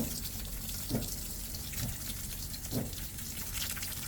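Tap water running steadily, with a few short splashes about a second apart.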